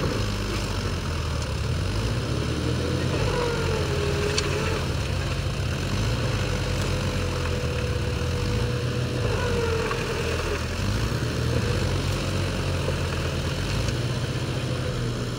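Diesel tractor engines, a Mahindra and a John Deere, running steadily, with a thin wavering tone over the low engine note.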